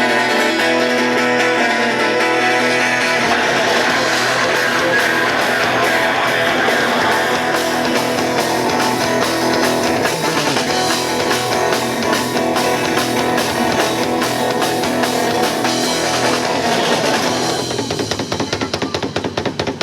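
A busking band plays a rock-style piece on guitar and drum kit for a sound check. Near the end the held chords drop out, leaving a quick, steady beat.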